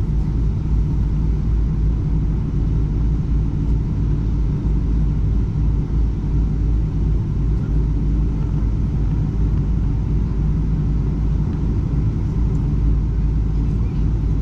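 Boeing 777-300 airliner noise, a steady low rumble of engines and airflow heard inside the cabin.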